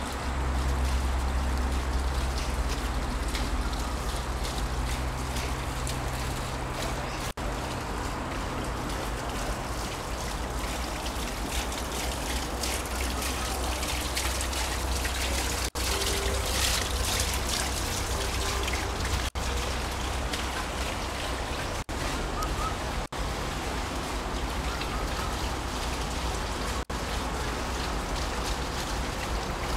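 Steady trickle and splash of running water, as from a garden pond, with a low rumble underneath for the first ten seconds or so.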